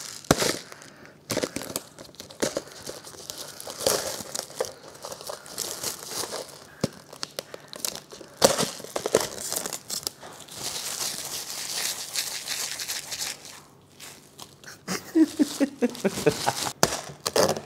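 Clear plastic shrink-wrap being torn off a Maggi Pedas Giler cup noodle and crumpled in the hands: close-up crinkling and crackling, densest around the middle.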